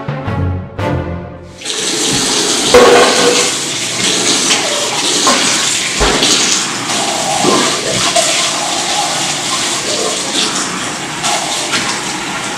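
Kitchen faucet running steadily into a stainless steel sink while a plastic cup is washed under the stream, with a few knocks as the cup is handled. Music plays for about the first second and a half and cuts off as the water starts.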